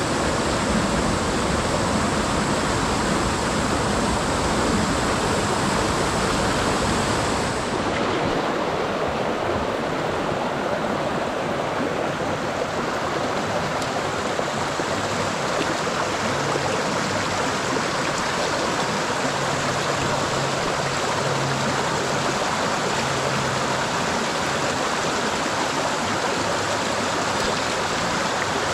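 Mountain stream water rushing and splashing over rocks in a steady flow. About eight seconds in, the low rumble drops away and the sound turns lighter.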